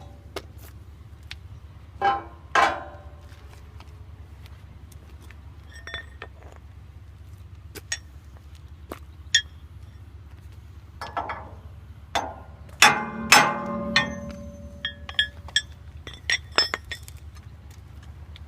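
Metal hammer taps on a sawmill band wheel's pillow block bearing housing, nudging it to square the wheel: sharp ringing clinks, a pair about two seconds in, then scattered taps and a quick run of them in the second half. A steady low hum runs underneath.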